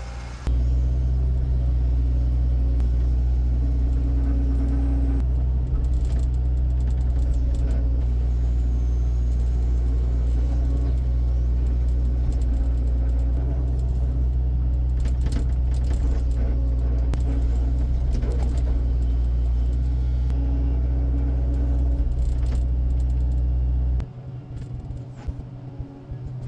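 Heavy vehicle engine running at a steady speed: a deep, even drone that starts suddenly and cuts off abruptly near the end.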